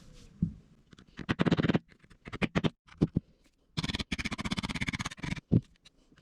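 Rapid clicking and rattling of small gun parts in a few short runs with pauses between, as the pins are worked out of an airsoft shotgun's receiver.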